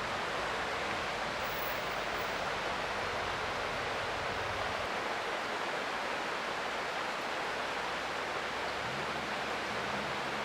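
Creek water running steadily over rocks: an even, continuous rushing.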